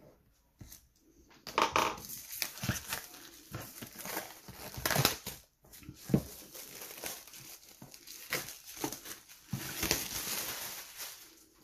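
Plastic shrink wrap on a cardboard board-game box being slit and torn off, crinkling and crackling irregularly throughout, with a few louder rips.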